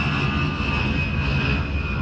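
Fixed-wing aircraft engine noise: a steady low rumble under a high whine that slowly falls in pitch, easing off slightly in loudness.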